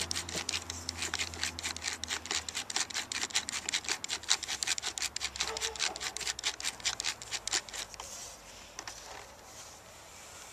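Screwdriver turning out the screw beneath a plastic headlight cover: a quick run of scraping clicks, several a second, that stops about eight seconds in.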